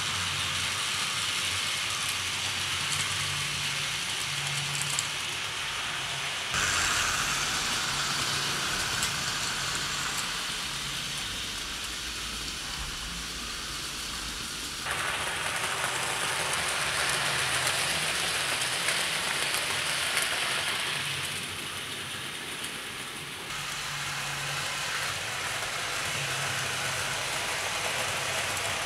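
Hornby 00 gauge model Hall class steam locomotive running with a train of empty wagons: a steady whirring and rushing of the motor and wheels on the track, with a faint pulsing hum underneath. The loudness and tone jump abruptly three times.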